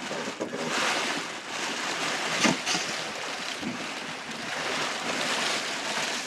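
Plastic air-cushion packing crinkling and rustling, with cardboard scraping as a long cardboard guitar box is pulled out of a shipping carton. One sharper crack about two and a half seconds in.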